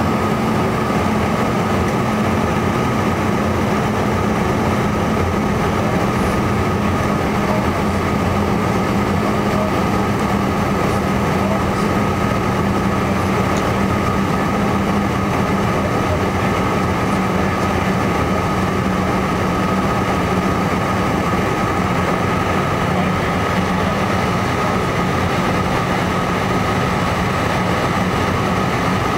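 Steady cabin noise of a Learjet 55 in flight on landing approach. Its rear-mounted Garrett TFE731 turbofans and the airflow give an unchanging drone, with a high whine and a low hum.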